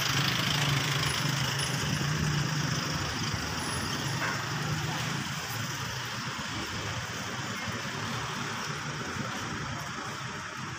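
City street traffic: jeepneys and other vehicles running past. A steady low engine hum in the first half slowly fades, leaving an even traffic noise.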